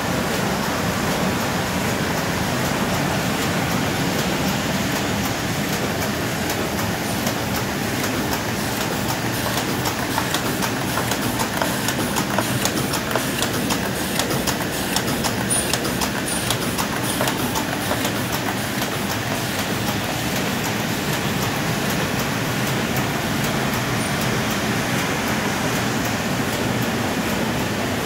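Autobond Multi 76 thermal laminator with Heidelberg feed head and flying-knife cross cutter running at production speed, laminating 5 mil PET film on both sides and cutting sheets flush at about 4600 sheets an hour. Steady mechanical clatter, with quick regular clicks most distinct through the middle.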